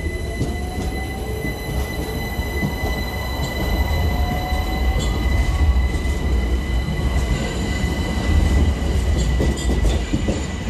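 Southern Electrostar electric multiple unit rolling past the platform, a steady heavy rumble of wheels on rail that grows louder through the middle, with a whine sliding down in pitch over the first few seconds and light wheel squeal.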